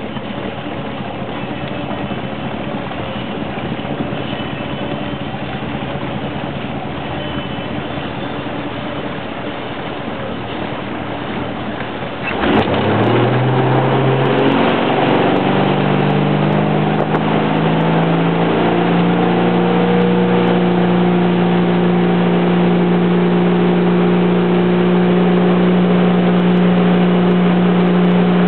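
Tow boat's engine running slowly, then opened up hard about twelve seconds in: its note climbs for several seconds and settles into a steady high-speed run, with the rush of the wake.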